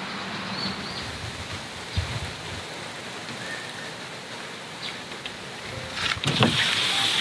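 Steady outdoor background hiss with a few faint short chirps, a single thump about two seconds in, and louder knocks and rustling near the end.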